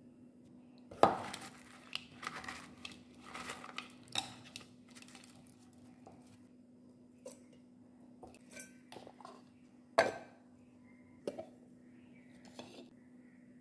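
Hands tearing and handling cooked rotis in a plastic bowl, with rustling and a few sharp knocks of kitchenware against the counter, the loudest about a second in and about ten seconds in. A low steady hum runs underneath.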